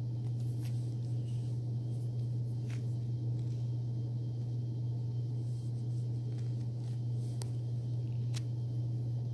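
A steady low hum, with a few faint, short clicks scattered through it.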